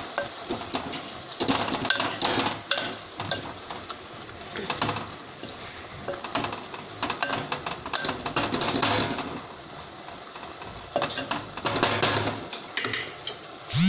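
Wooden spatula stirring wet leafy greens and tomato pieces in a clay pot, scraping and knocking against the pot in irregular strokes.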